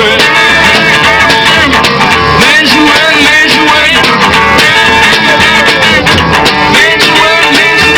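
Street band playing an instrumental break between sung verses, led by guitar, with melody lines that bend up and down in pitch over a steady backing.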